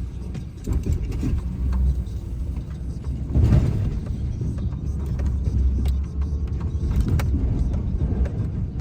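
Plow truck engine running with a steady low rumble and scattered knocks, with a louder rushing surge about three and a half seconds in.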